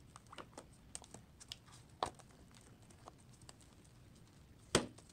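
Light plastic clicks and taps as a clear plastic dialysis cassette is pushed by hand into the cassette slot of a Baxter peritoneal dialysis cycler, with a sharper click about two seconds in and a louder knock near the end.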